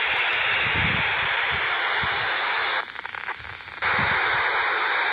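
FM static hissing from the speaker of a Polmar DB-4 handheld radio tuned to the ISS amateur repeater's downlink, with no voice coming through. The hiss cuts out for about a second near the middle, then returns.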